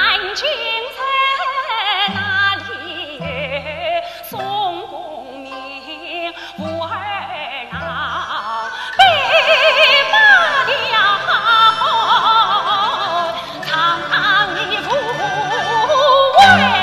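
A woman singing a Yue (Shaoxing) opera aria with wide vibrato over a traditional Chinese opera orchestra. Low instrumental notes come and go beneath her, and the singing grows much louder about nine seconds in.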